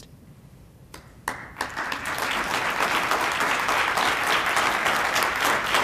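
Audience applauding: a few scattered claps about a second in, swelling into steady applause from a roomful of people.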